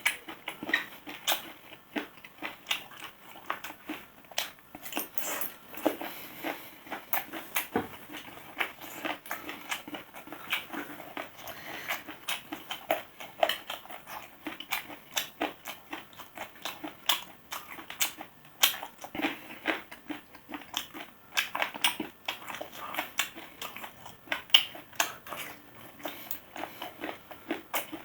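Someone biting and chewing deboned chicken feet, with many quick irregular clicks and smacks of eating.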